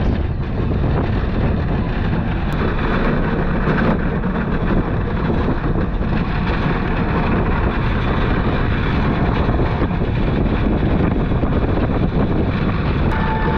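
Wind buffeting the microphone over the steady rumble of a pedal-powered suspended rail bike (the SkyRide) rolling along its overhead track. A brief high tone sounds near the end.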